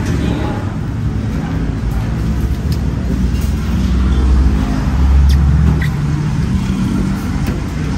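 Road traffic passing steadily. Its low rumble swells twice, around four and five seconds in, as heavier vehicles go by. A few light clicks sound over it.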